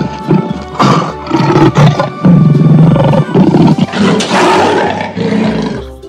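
Lion roaring in several loud surges, over background music.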